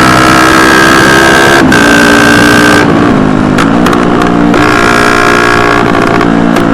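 Motorcycle engine pulling hard through the gears, its pitch shifting in steps at several gear changes, with wind and road noise, heard close up from a camera mounted on the passenger footpeg.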